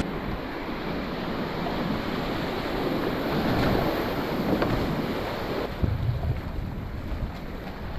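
Rushing whitewater of a creek rapid heard from a kayak running it, with wind and water buffeting the microphone, most unevenly in the last couple of seconds.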